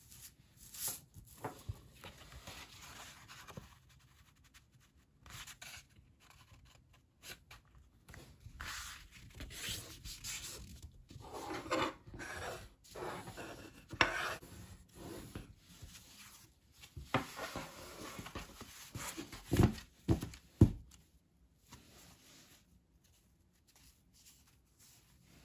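Heavy cotton printmaking paper being folded and creased with a bone folder: irregular rustling and scraping strokes as the folder is run along the fold, with two low thumps about three-quarters of the way in.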